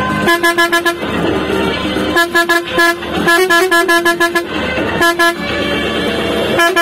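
Vehicle horn honked in quick repeated toots on one steady note, in several rapid bursts, over the running engine and road noise.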